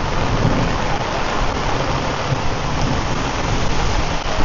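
Heavy monsoon rain pouring steadily, with a low rumble underneath.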